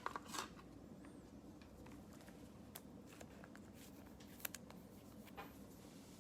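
Faint handling of trading cards, with a few soft, short clicks and rustles against a quiet room hum.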